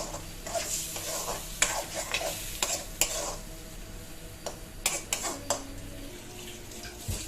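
A spoon stirring and scraping a pot of curry sizzling on the stove, with several sharp clicks of the spoon against the pot. The curry is being stirred because it has begun to catch on the bottom of the pot.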